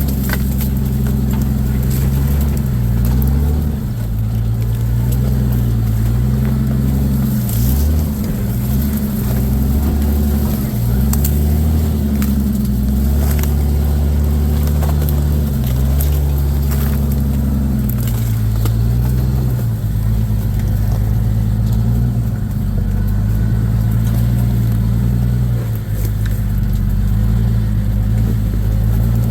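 Off-road vehicle's engine running at low revs as it crawls along a trail, its pitch rising and falling with the throttle, with scattered clicks and knocks from the ground under the tyres.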